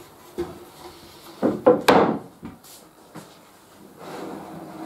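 Solid pine boards being handled and set down on other pine pieces: a few wooden clunks, the loudest about a second and a half to two seconds in, then a softer rubbing scrape near the end.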